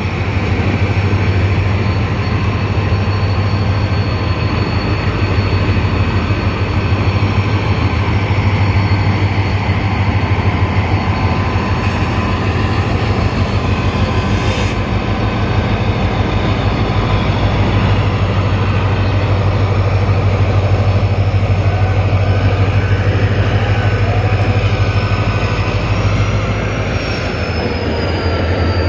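Pakistan Railways diesel-electric locomotive's engine running with a loud, steady low drone as the locomotive rolls slowly past close by, hauling passenger coaches.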